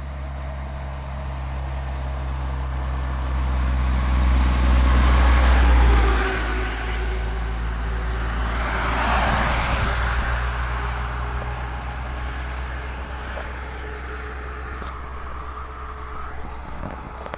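A semi-truck and a minivan close behind it pass on the road. A heavy low engine drone swells to a peak about five seconds in, then a second rush of tyre and road noise peaks a few seconds later and fades away.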